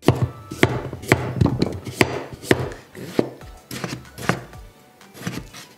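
Kitchen knife slicing a carrot and then a tomato on a wooden cutting board, the blade knocking on the board roughly every half second. The knocks grow softer in the second half.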